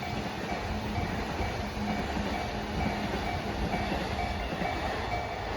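JR Freight container train of Koki flatcars rolling past with a steady rumble and wheel clatter, while the level crossing's warning bell rings on and on in an even, repeating rhythm.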